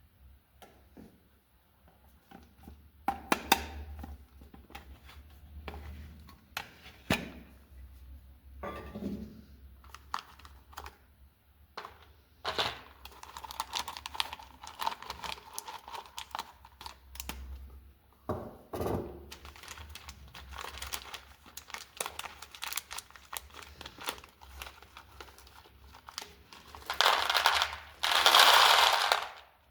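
Crinkling packaging and small clicks and taps of items being handled, with two louder, longer rushing bursts near the end.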